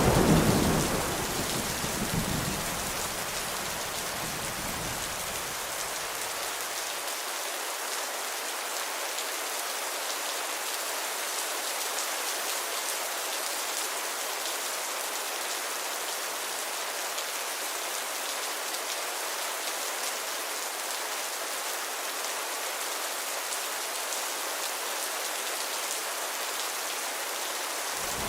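Heavy rain falling steadily in an even hiss. A low rumble of thunder dies away over the first few seconds.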